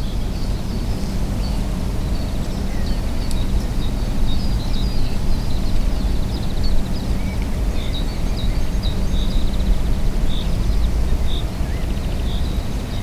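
Wind buffeting the microphone with a steady low rumble, over small birds chirping and giving short rapid trills in the distance.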